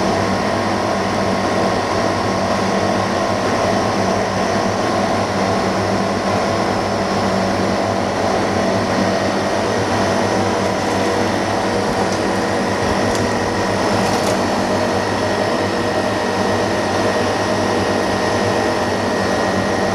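Steady motor drone of running workshop equipment: a low hum and a faint high whine over an even rush of air.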